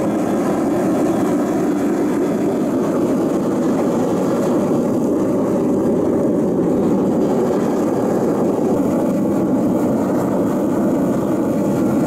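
Homemade gas-fired crucible furnace running with its electric blower forcing air into the burner: a loud, steady rushing noise that holds even throughout.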